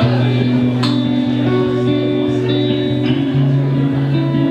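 Live rock band playing: electric guitars and bass guitar holding long, sustained notes.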